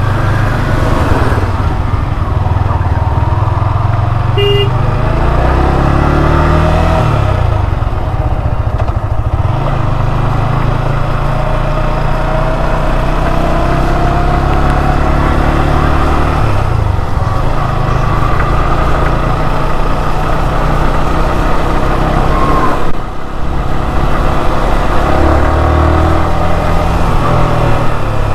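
Motorcycle engine running on the move, its pitch rising and falling several times with throttle and gear changes, over a heavy low rumble.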